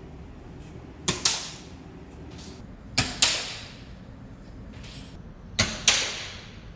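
Three shots from an airsoft precision target pistol, a couple of seconds apart. Each is a sharp crack, followed a fraction of a second later by a louder clack with a short ring as the BB strikes a small silhouette target on its stand.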